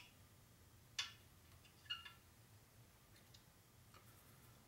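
Small metal measuring gauge clicking as it is handled: three sharp clicks with a short metallic ring, about a second apart, then two fainter ticks.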